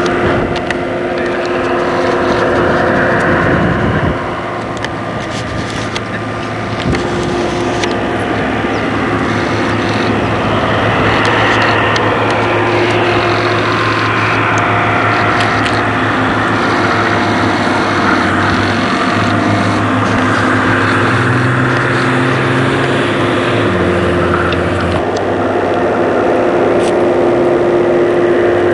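Jet aircraft taxiing close past, its engines running with a steady whine made of several held tones. The low hum under it shifts pitch a few times in the second half.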